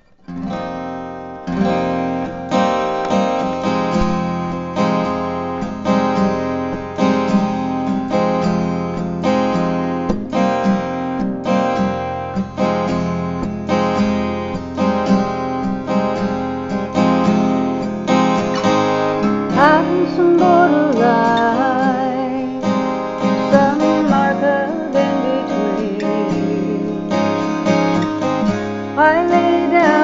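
A mahogany acoustic guitar is strummed in a steady chord pattern, starting just after the opening. About two-thirds of the way through, a woman's voice comes in singing held notes with vibrato.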